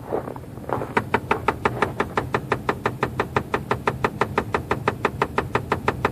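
Rapid, even clicking of unknown origin in a 2004 Chevrolet Trailblazer just after start-up, about eight clicks a second, over the low hum of the engine running. The clicking starts about a second in and keeps on without a break.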